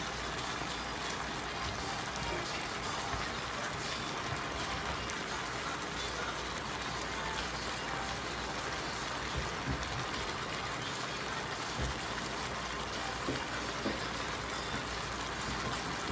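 Chicken strips simmering in sauce in an electric skillet: a steady bubbling sizzle, with a few faint pops in the second half.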